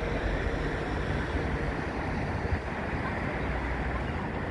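Steady rushing noise of wind buffeting the phone's microphone, heaviest in the low rumble, with no distinct events.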